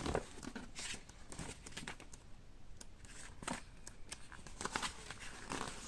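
Pages of a glossy magazine being leafed through by hand: faint, short paper rustles and flaps at irregular intervals.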